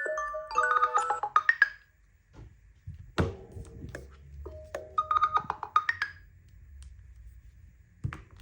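A smartphone alarm or timer tone: quick melodic runs of short, bright notes, twice, with a pause between them. A dull thump comes about three seconds in and another near the end.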